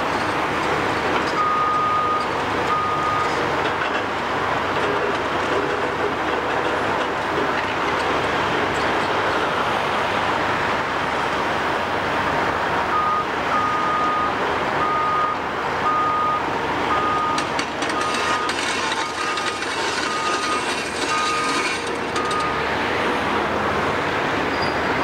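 Large tracked demolition excavators, including a Caterpillar 374F, running with a steady diesel engine din. Over it an excavator's travel alarm beeps: twice a couple of seconds in, then about ten evenly spaced beeps, roughly one a second, from about halfway through.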